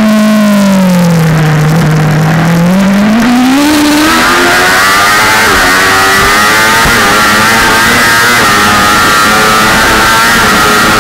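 BMW M1000RR's inline-four engine heard from onboard the bike: it drops to low revs through a slow corner for about two seconds, then climbs as the throttle opens and pulls hard up through the gears, its pitch rising in steps. Wind rush grows loud from about four seconds in as speed builds.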